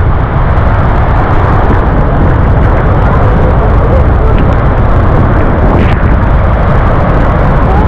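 Athirappilly waterfall in monsoon flow, heard close to its base: a loud, steady rushing rumble of falling water.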